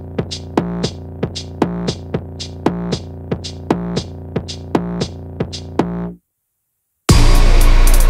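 Background electronic music with a steady drum-machine beat over a synthesizer bass line. It cuts out suddenly about six seconds in, then comes back a second later, louder, with fuller drums.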